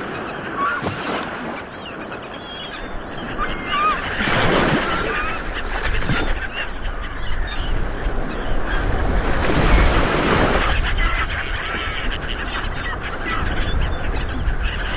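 Ocean waves rolling onto a shore, with a surge swelling in about four seconds in and another around ten seconds in. Birds give short calls over the surf.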